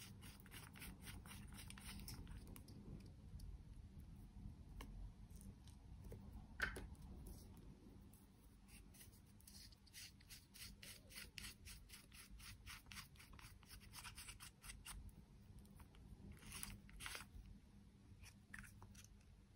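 Twist-up makeup stick tubes being turned in the fingers, a faint rapid run of small clicks at about four a second that comes in spells, with one sharper click about seven seconds in.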